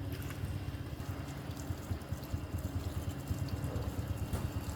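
A small motor running steadily with a low, rapidly pulsing rumble and a steady hum.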